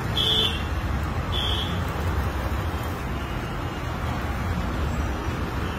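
Steady low, noisy background with two short, high-pitched beeps about a second apart near the start.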